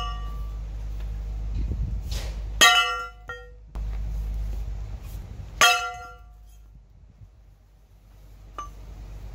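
Sledgehammer blows on a seized, rusted Wilton 1755 ductile-iron bench vise: two ringing metal clangs about three seconds apart, with a faint ping near the end. Each whack drives the rust-frozen sliding jaw out a little.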